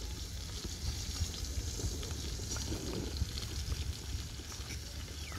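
Steel spoon mixing flour into beaten eggs in a ceramic bowl, with faint scrapes and small clinks over a steady low rumble.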